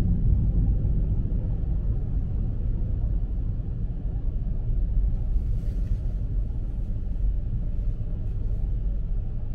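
Steady low rumble of city street noise, with a brief faint hiss about five and a half seconds in.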